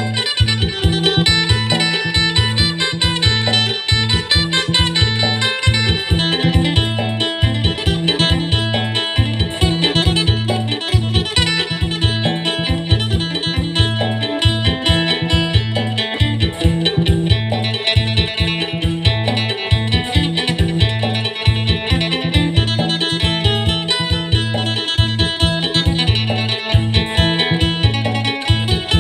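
Acoustic phin, the Isan Thai plucked lute, playing a fast, bright melody in sing style over a steady bass line and an even drum beat.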